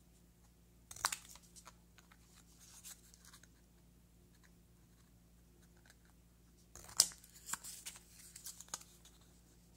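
Long-bladed scissors snipping through thick watercolor paper as the corners of small tags are trimmed: a few crisp snips about a second in, then a quicker run of snips in the last three seconds.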